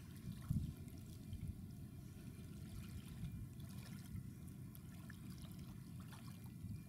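Low, gusty rumble of wind on the microphone, with faint water lapping.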